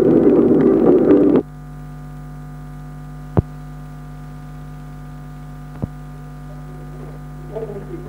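Steady electrical mains hum on the soundtrack, broken by two sharp clicks, after a loud rushing noise cuts off suddenly about a second and a half in; voices begin faintly near the end.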